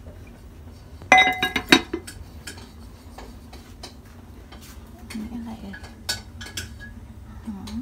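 Cookware clattering: two or three loud clinks with a metallic ring about a second in, then lighter scattered clicks of pots, lids and utensils.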